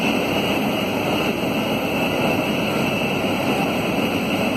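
Steady jet-airliner noise heard from inside the cabin: an even rush of engine and air noise with a constant high whine over it.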